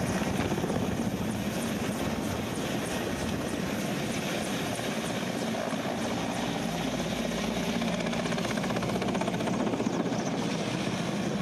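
Mil Mi-17 twin-turbine military helicopter flying low overhead, its main rotor chopping rapidly over the steady rush of the engines.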